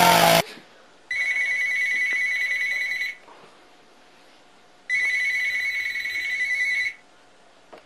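Electronic telephone ringing twice, each ring a steady warbling trill about two seconds long with a pause of nearly two seconds between. A loud rasping noise cuts off just after the start.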